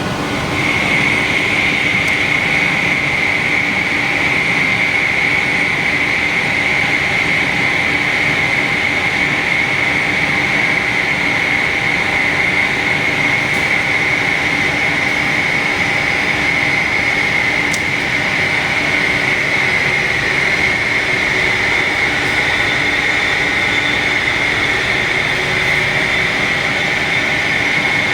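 Morando CNC vertical turning lathe running steadily: a continuous machine hum with a steady high-pitched whine that sets in about half a second in and holds.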